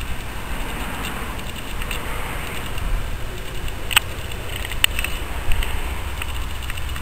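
Outdoor rumble of wind buffeting the microphone. A few sharp clicks come about four and five seconds in.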